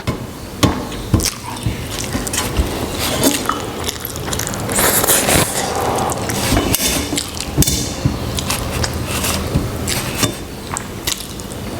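Close-miked eating: wet squishing and smacking of rice and egg curry being eaten, with chewing and many short mouth clicks throughout.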